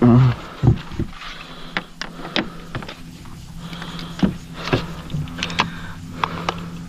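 Scattered sharp clicks and knocks of gear being handled in a plastic sit-on-top kayak, with a landing net and pliers worked over a caught fish. A brief vocal sound comes at the very start, and a steady low hum runs underneath.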